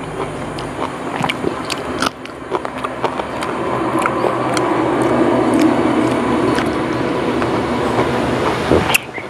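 Rumble of a passing vehicle that builds over several seconds and drops away near the end, with small clicks from eating and handling the food.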